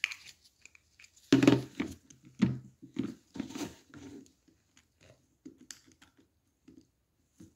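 Gloved hands working a plastic dental tool over a plastic tooth model with braces, and tilting the model: irregular handling sounds. A cluster of louder ones comes about a second in, followed by scattered quieter ones.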